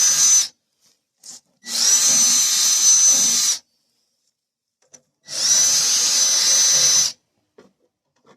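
Electric drill spinning a round chainsaw file against the chain's cutter teeth, running in short runs of about two seconds with a steady high whine and stopping in between, one run per tooth being sharpened.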